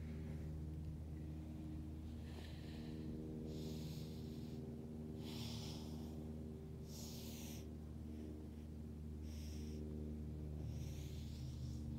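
A person's breathing, about six audible hissing breaths at an even pace, over a steady low drone.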